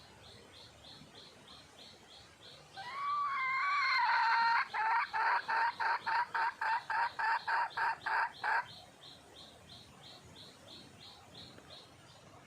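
Red junglefowl hen calling: one drawn-out note, then a run of about a dozen short, evenly repeated notes, about three a second, stopping abruptly. A faint high ticking call, like an insect, repeats steadily behind it.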